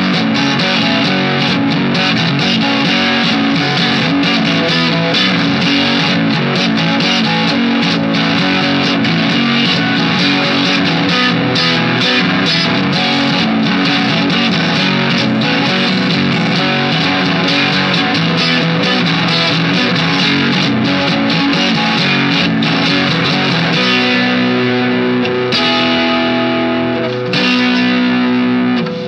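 Background rock music with distorted electric guitar, loud and continuous, with held chords near the end.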